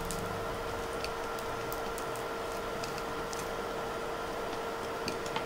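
Kulcha cooking on a hot tawa over a gas flame: a steady hiss with faint, scattered crackles and a steady hum underneath.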